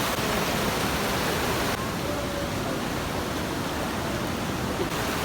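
Steady rushing of water from a waterfall and its stream. The hiss thins in its upper range a little under two seconds in.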